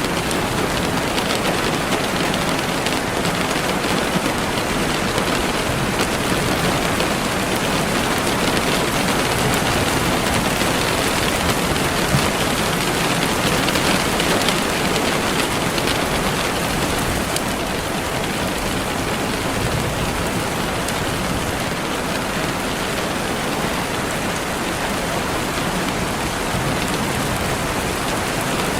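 Steady rain falling and pattering on a surface, an even dense hiss of many drops.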